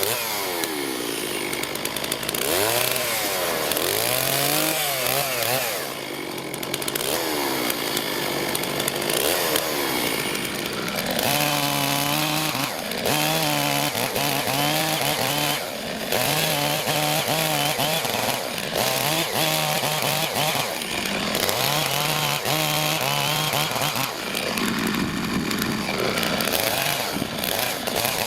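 Two-stroke chainsaw running and cutting firewood, its engine pitch rising and falling over and over as it revs up and settles into the cuts.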